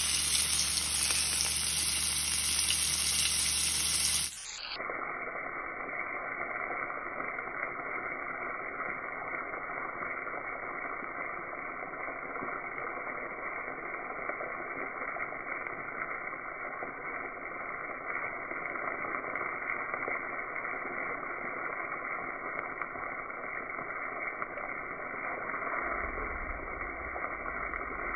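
Morel mushrooms frying in hot fat in a skillet: a steady sizzling hiss with scattered tiny pops. About four seconds in, the hiss abruptly turns quieter and duller, losing its high end.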